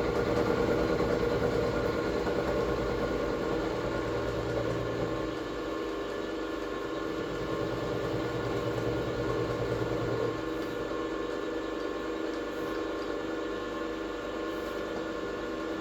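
Workshop machine tool running steadily under its electric motor, a hum made of several steady tones, while a cut is taken. Its lower tone eases off about five seconds in, comes back, and eases again about ten seconds in.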